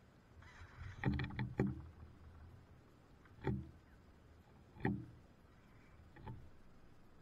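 Hollow wooden knocks and thumps from birds moving on the wooden feeder: a short hiss, then a quick cluster of three knocks about a second in, followed by single knocks about every one and a half seconds.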